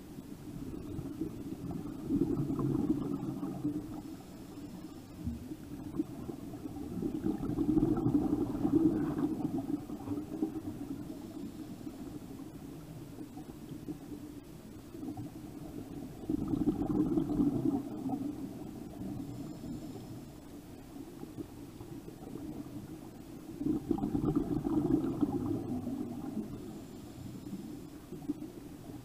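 A scuba diver's exhaled bubbles rushing and gurgling past the underwater camera, four bubbly surges about seven to eight seconds apart, one per breath, with quieter stretches between them.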